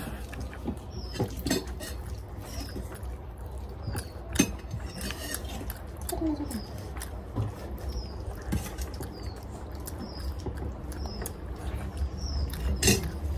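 A person eating rice and curry with their hands, close to the microphone: chewing and lip-smacking with many small wet mouth clicks. A faint high chirp repeats about once a second behind it.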